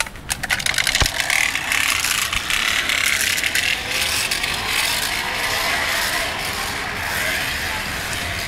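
Bicycle rigged to imitate a sports bike's engine sound, being ridden: rapid clicking that within about a second becomes a continuous fast rattling buzz, easing off slightly near the end.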